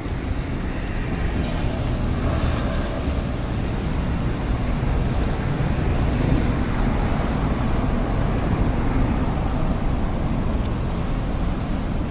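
Steady city street noise, mostly the low rumble of passing road traffic.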